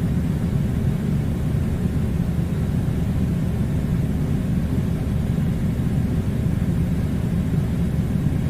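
Air conditioner running: a steady, unbroken low rumble of blowing air.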